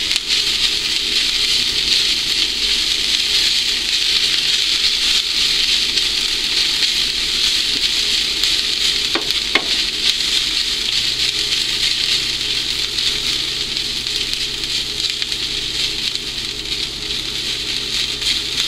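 Sliced bitter gourd sizzling steadily as it fries in hot olive oil in a stainless steel frying pan, while a wooden spatula stirs it.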